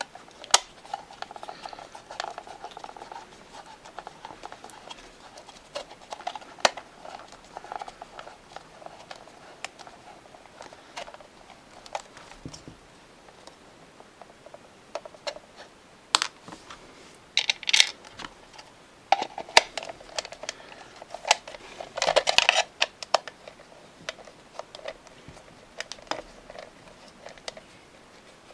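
Screwdriver turning the small screws in a 1992 Playskool Teddy Ruxpin's hard plastic head shell. Irregular clicks, scrapes and creaks of plastic being handled, with a few louder scraping bursts a little past the middle.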